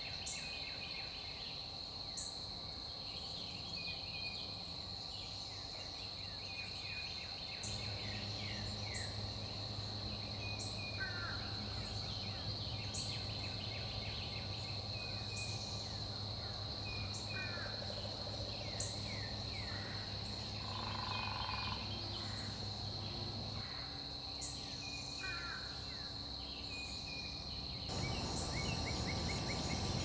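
Woodland ambience: a steady high insect drone, with repeated sharp chip notes and short falling whistles from northern cardinals over it. A low steady hum comes in about a quarter of the way through and fades out past the middle. Near the end a louder, denser chorus of crickets takes over.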